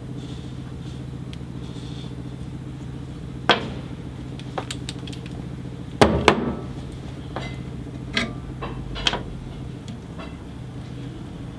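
Steady low hum of a running workshop machine, with several sharp metal knocks and clinks of tools or parts being handled. The loudest cluster of knocks comes about halfway through.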